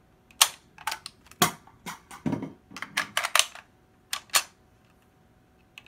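Ruger Mini-14 rifle being handled: a quick series of sharp metal clicks and clacks from the magazine latch and action being worked by hand. Two more clacks come a little after the main run.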